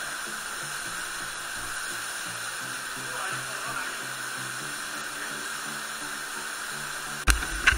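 Fast-flowing mountain stream water rushing over granite close to the microphone, with faint music underneath from a few seconds in. Two sharp knocks near the end.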